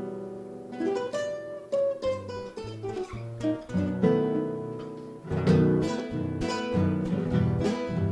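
Acoustic guitars playing an instrumental introduction: single plucked notes with a downward slide at first, then rhythmic strummed chords from about five seconds in.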